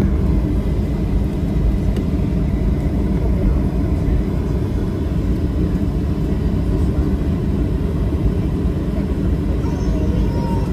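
Steady low rumble of a Boeing 737-800 airliner, with a faint steady whine above it.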